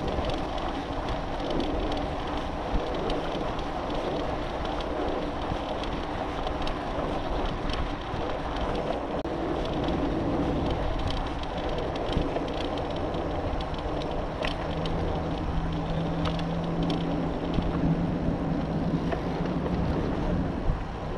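Wind rushing over the microphone of a moving bicycle, steady throughout, with a few light clicks and rattles. A low steady hum comes in for several seconds near the end.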